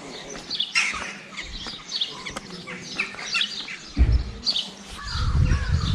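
Small birds chirping, many short calls overlapping throughout. A loud low thump comes about four seconds in, followed by low rumbling bursts near the end.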